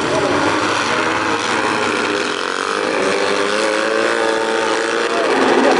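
Several autocross buggies' engines revving hard together as the pack slides through a dirt corner and accelerates away. The notes overlap, and the pitch rises about halfway through.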